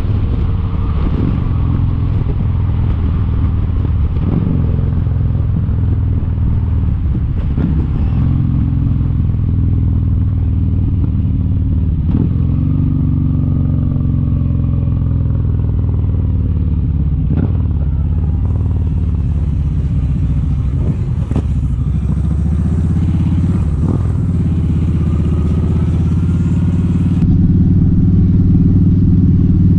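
Motorcycle engine running steadily at road speed, with a few brief knocks spread through it.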